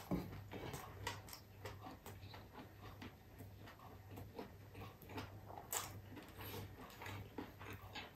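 Eating sounds: soft chewing and small mouth clicks while garlic fried rice is picked up by hand from a tray, over a faint steady low hum.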